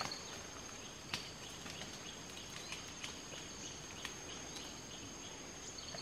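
Rainforest insects giving a steady, high-pitched drone over a faint hiss of forest ambience, with a few faint clicks, the sharpest about a second in.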